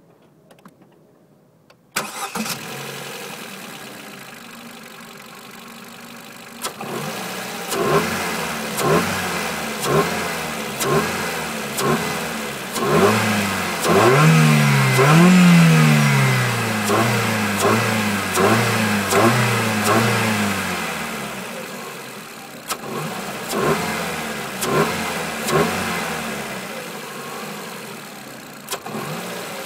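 Ford Fiesta Mk7 engine with a BMC air filter starting about two seconds in and settling to idle. It is then revved in short throttle blips about once a second, with a longer, higher rev held in the middle.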